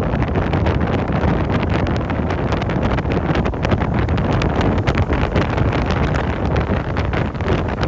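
Sea waves surging and breaking, a loud steady rush of water with fine crackling spray, and wind buffeting the microphone.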